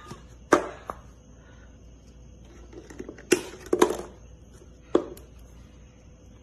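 A plastic-lidded paper drink cup knocking on a wooden table as it is tipped over and set back down: a handful of sharp, separate knocks with quiet between them, the loudest a little past the middle.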